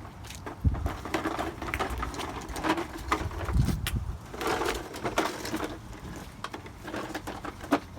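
A child's bicycle bumping down a flight of outdoor steps: a run of irregular knocks and rattles, with wind buffeting the microphone in low rumbles now and then.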